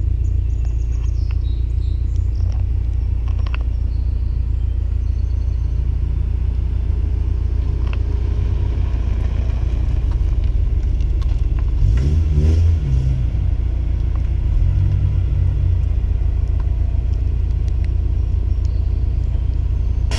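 Car engine idling with a steady low rumble, its pitch shifting briefly about twelve seconds in.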